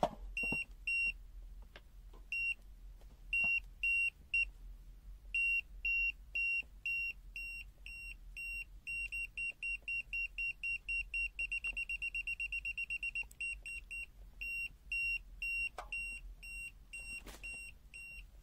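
BSIDE X1 multimeter's non-contact voltage detector, in sensitive mode, beeping to signal that it senses AC voltage. Short high-pitched beeps come in uneven groups, then speed up into a rapid, almost continuous trill for a few seconds in the middle, then slow again.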